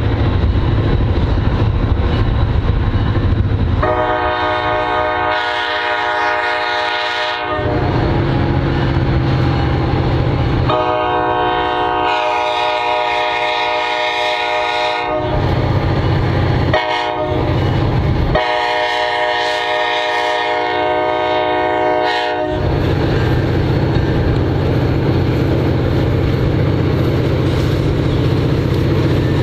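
Horn of an EMD SD40-2 diesel locomotive sounding the grade-crossing signal: two long blasts, one short, one long. Under it runs the low, steady rumble of the locomotive's turbocharged 16-cylinder diesel under load, pulling a loaded grain train as it approaches.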